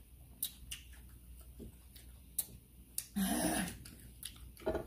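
Mouth sounds of people eating spicy instant noodles: scattered wet clicks and lip smacks of chewing, with a short hummed 'mm' a little past three seconds in.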